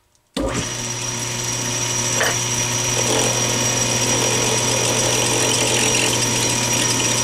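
Small Atlas 618 bench lathe running at a steady speed, its motor and drive giving a steady hum with a high whine, while a turning tool cuts a brass rod held in the chuck. The sound starts suddenly a moment in and holds steady.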